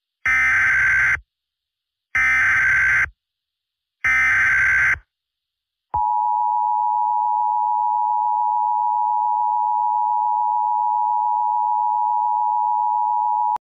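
Emergency Alert System SAME header: three bursts of warbling digital data tones, each about a second long, then the two-tone EAS attention signal (853 and 960 Hz together) held steady for about seven and a half seconds before cutting off. It signals that an emergency alert, here a tornado warning, is about to be read.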